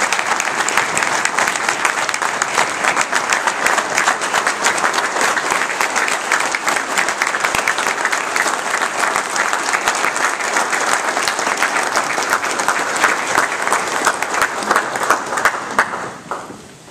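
Audience applauding: a long round of clapping from many hands, dying away near the end.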